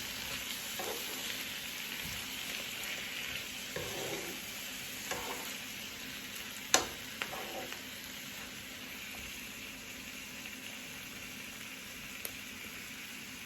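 Chicken with frozen mushrooms sizzling steadily in hot oil in a pan while being stirred, with a few short scrapes of the spoon and one sharp clink about seven seconds in.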